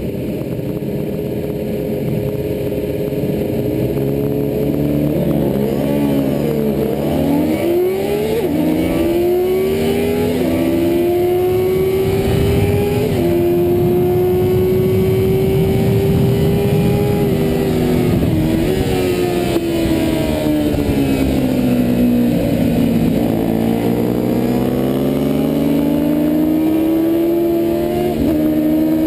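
Yamaha FZR400RR's inline-four engine heard from on board: held at revs on the start line, then launching and pulling up through the gears, its pitch climbing and dropping back at each upshift. Later the revs fall away as it slows for a corner, then it accelerates hard again with more upshifts.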